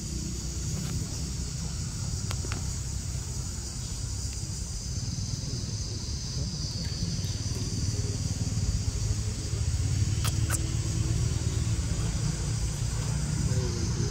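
Steady high-pitched insect chorus, which drops off somewhat near the end, over a continuous low rumble.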